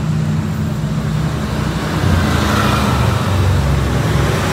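A motor vehicle's engine running steadily with traffic noise, getting louder and lower-pitched about two seconds in.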